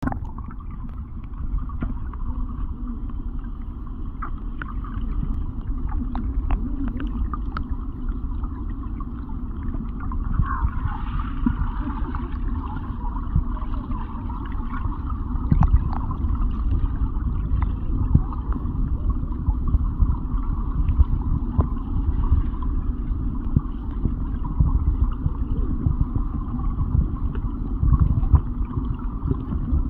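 Muffled underwater sound of a flowing creek heard through a submerged camera: a steady low rumble of moving water with scattered small clicks and pops, getting a little louder about ten seconds in.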